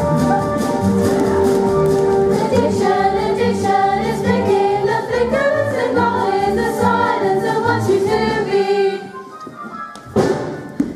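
Loud show music with a group singing over a repeating bass beat; the music stops near the end.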